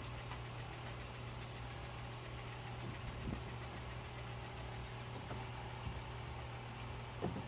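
Steady low machine hum, like a motor or engine running, with a few faint soft knocks.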